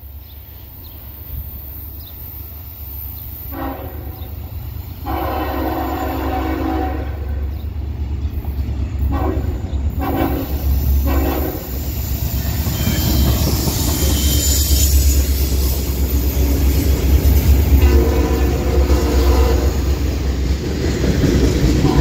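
A diesel freight locomotive's multi-chime air horn sounds a series of blasts: a short one, a long one of about two seconds, then four quick short toots, with a longer blast near the end. Under them the rumble of the CSX locomotives grows louder as they approach and pass, and the freight cars then roll by.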